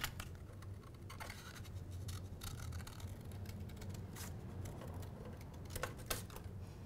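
Scissors cutting heavy hot-press watercolour paper: faint scratchy snips, a few clearer near the end, over a low steady hum.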